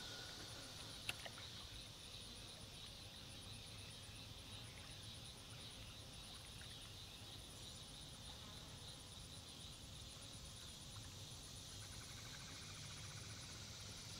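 Faint chorus of insects trilling in the pasture grass: a steady, high-pitched, rapidly pulsing trill with a lower hiss beneath it, and one faint click about a second in.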